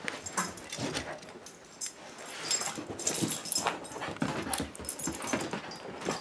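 A Cavalier King Charles spaniel puppy making small dog sounds while it plays close to the microphone, with scattered short scuffs and knocks throughout.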